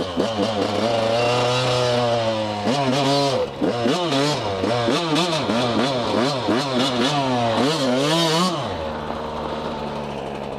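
Yamaha YZ125 two-stroke single-cylinder dirt bike engine being ridden. Its engine speed holds fairly steady at first, then climbs and drops again and again with the throttle for several seconds, and settles to a steady lower speed near the end.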